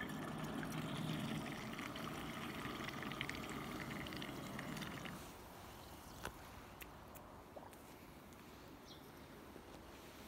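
Robotic pool cleaner working at the waterline: water churning and spilling around it over a low steady motor hum. About five seconds in the splashing stops and the sound falls away to a quieter background.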